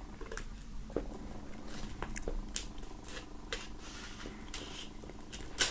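Knife blade slitting the plastic shrink-wrap along the edge of a vinyl record sleeve: faint scratching with scattered light ticks, and a sharper click near the end.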